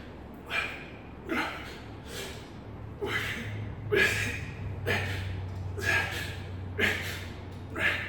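A man's sharp, forceful breaths from exertion, about one a second, in time with the reps of a set of dips.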